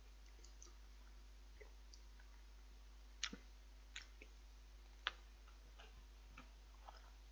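Near silence: room tone with a few faint, sharp clicks, the clearest about three, four and five seconds in.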